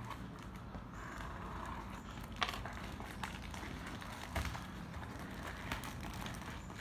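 Parcel being opened by hand: scattered clicks and knocks with rustling of the packaging.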